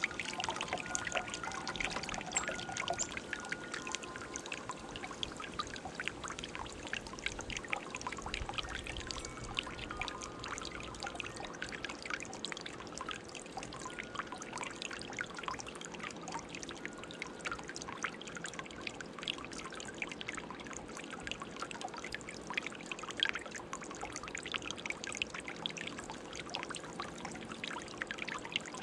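Garden bowl fountain running: water trickling and pouring steadily, with a constant patter of small splashes.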